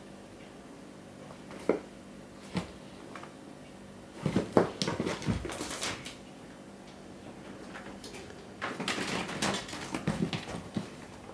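Burmese kitten scrambling about on a hard-shell backpack and carpet: claws scratching and scrabbling on the plastic shell, with light knocks and thumps. Two single knocks come early, then a scuffle about four seconds in and another longer one from about eight seconds on.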